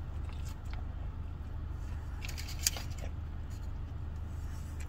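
Chewing a mouthful of crunchy fried chicken sandwich, with a short run of crisp breading crunches about two and a half seconds in, over the steady low hum of a car.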